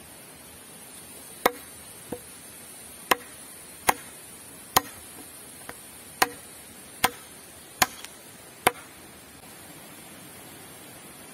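A blade chopping into a wooden pole: about ten sharp strikes, under a second apart, some weaker than others, that stop about nine seconds in.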